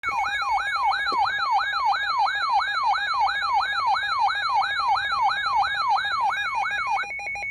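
Weather alert radio's electronic siren alarm sounding for a tornado warning: a loud warbling tone that jumps up and slides back down about two and a half times a second, stopping about seven seconds in.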